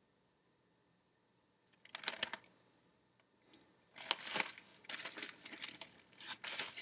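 Newspaper pages rustling and crinkling as a broadsheet is handled and folded: a short rustle about two seconds in, then more rustling through the second half.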